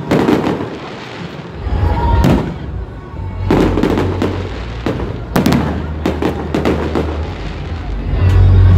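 Aerial fireworks bursting: a string of sharp bangs a second or two apart, some coming in quick clusters of pops, over a deep low rumble that swells loudest near the end.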